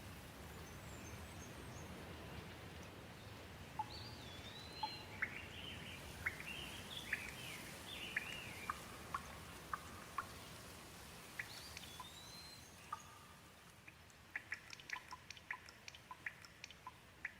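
Gentle rain falling steadily while a bird calls in a run of short chirps and whistles. A little past two-thirds through the rain thins, and quick drips of water tap in a loose cluster.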